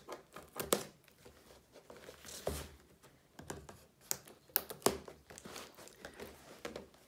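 Scissors cutting along the taped edge of a cardboard box: a string of irregular sharp snips and clicks with cardboard and tape crinkling.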